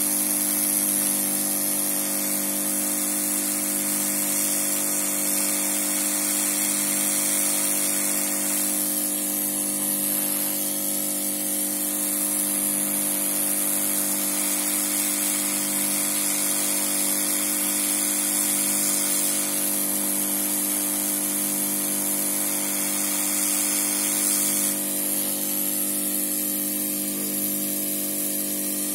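Hot air rework station blowing steadily, an even hiss of air over a steady hum from its fan, the hiss shifting slightly twice. It is the heat used to solder a replacement PWM driver IC onto the motherboard.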